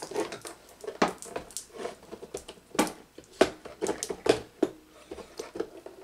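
Hands handling a bundle of control wires and a plastic push-button station: irregular light clicks, taps and rustles.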